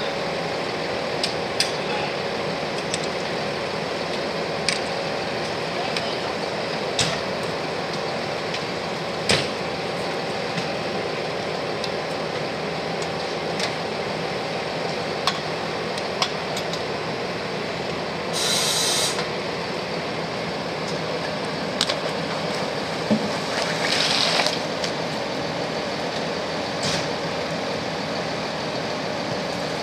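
Fire engine running steadily, with scattered clicks and knocks of gear and two short hisses, about 18 and 24 seconds in.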